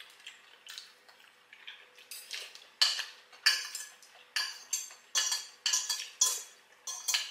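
Metal spoon and fork scraping and clinking against a ceramic plate during eating. Faint at first, then about ten sharp scrapes and clinks roughly every half second from about two seconds in.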